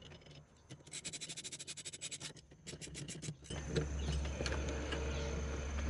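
Ratchet wrench clicking in a quick even run, about eight clicks a second for a second and a half, then a few more clicks, as the steering-wheel hub nut is run down onto the column. A steady low hum sets in about three and a half seconds in.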